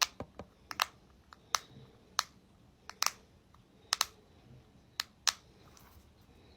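Sharp tapping clicks on an ASMR ball, about a dozen at uneven intervals, several of them in quick pairs.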